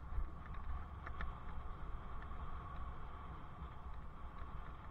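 Wind buffeting a helmet camera's microphone while cycling along a paved road, a steady low rumble with riding noise under it. A few faint ticks come in the first second or so.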